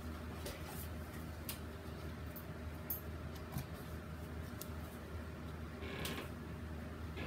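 Quiet room tone: a steady low hum with a few faint, scattered clicks, the clearest about six seconds in.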